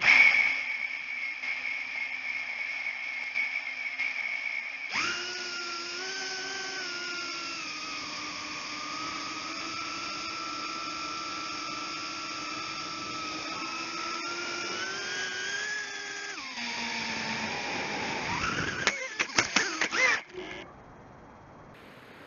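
Brushless motors and propellers of a 135 mm FPV quadcopter whining, heard through the onboard camera's microphone. The pitch jumps up about five seconds in and then rises and falls with the throttle. Near the end come a few seconds of irregular knocks as the quad crashes and tumbles, and then the motors cut off suddenly.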